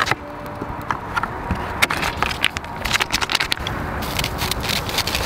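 Wood campfire crackling, with irregular sharp pops and snaps over the steady sound of a pot boiling hard on the fire.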